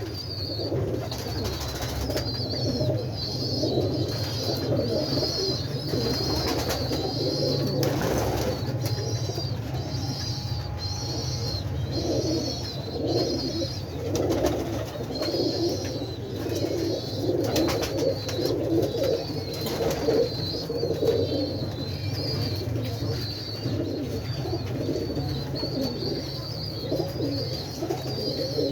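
Birds giving repeated low cooing calls, with a high chirp repeating above them over a steady low hum.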